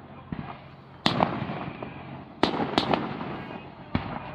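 Fireworks display with aerial shells bursting in sharp bangs, each trailing off in a rumbling echo. There is a small pop just after the start, a loud bang about a second in, two more close together past the middle, and a last one near the end.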